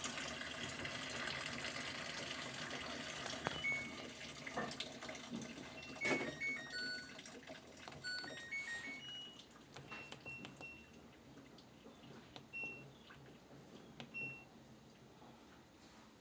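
Water running, fading away over the first half, followed by a scattering of short, high beep-like tones.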